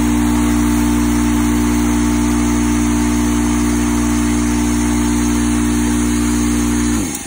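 Craftsman air compressor's electric motor and pump running steadily, a loud hum with a hiss of air. It now keeps running without tripping the breaker, because a hard-start capacitor with its own relay takes the start circuit out once the motor is up to speed. Near the end the motor winds down and stops.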